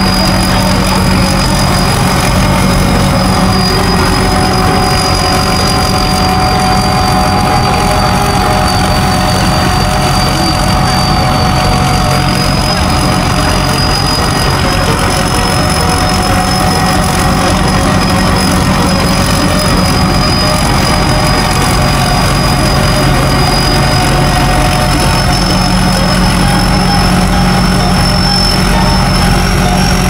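An engine running steadily at an unchanging speed, with a constant high whine over its drone.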